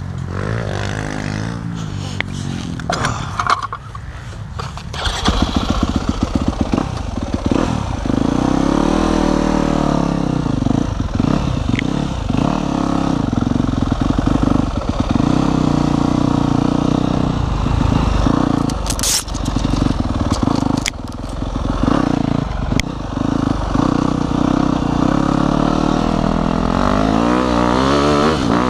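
Dirt bike engine idling steadily, with a few short clicks and knocks partway through. Near the end the engine revs up and down as the bike pulls away.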